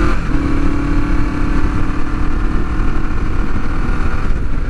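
1973 Honda CB450's parallel-twin engine running steadily while riding along the road, under heavy wind rumble on the microphone.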